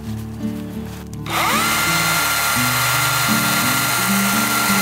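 Battery-powered chainsaw starting about a second in, its whine rising quickly and then running steadily as it cuts into a log. Background music plays underneath.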